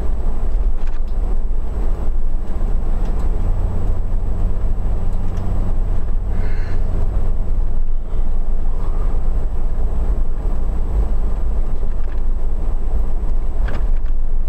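Inside a car while driving: steady engine and tyre rumble, with the cabin heater fan running.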